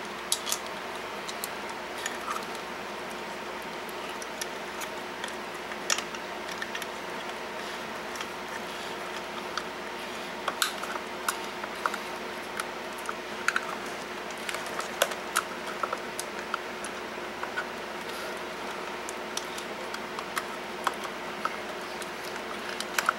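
Scattered small clicks and light knocks of wires and a dimmer switch being handled and pushed into an electrical box, irregular and uneven in loudness, over a steady low hum.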